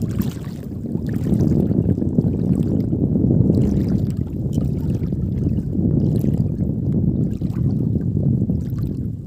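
Wind rumbling unevenly on the microphone, with faint splashes and drips of water as a fishing net is hauled in by hand through shallow river water.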